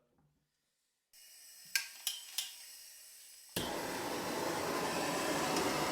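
Gas soldering torch being lit: a faint hiss of gas with three sharp clicks, then about three and a half seconds in the flame catches and burns with a steady, loud rush.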